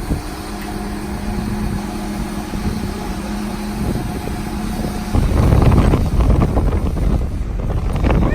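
An engine running steadily with an even hum, then about five seconds in a louder rushing of wind on the microphone covers it.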